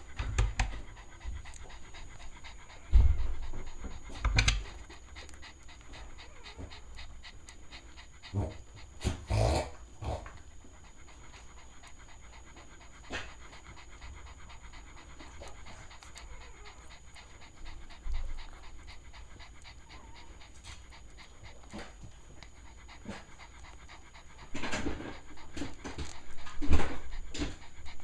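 Cavalier King Charles spaniel panting quickly and steadily while nursing her newborn puppies, with a few louder bumps and rustles now and then, most of them near the end.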